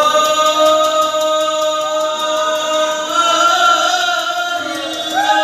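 A man singing into a microphone, through the hall's PA, in long held notes with slow bends in pitch. A new phrase starts near the end and slides downward.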